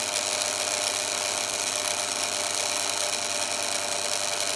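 Yaesu G-5500 elevation rotator's AC motor and gear train running with a steady whine, struggling and slowing toward a stall. The cause is its failing 100 µF motor run capacitor.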